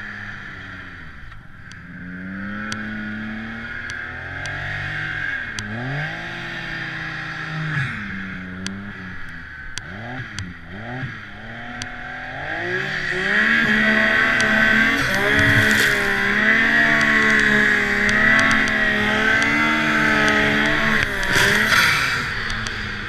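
Turbocharged Yamaha SRViper MTX snowmobile's three-cylinder four-stroke engine revving up and down repeatedly while pushing through deep powder, with a steady high whine over it. It gets louder and holds high revs from about halfway through.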